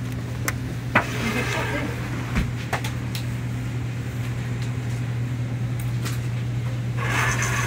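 Plastic takeaway food trays clicking and knocking as they are handled on a wire rack, a few sharp clicks in the first three seconds, the loudest about a second in. Under them runs a steady low hum, with faint voices now and then.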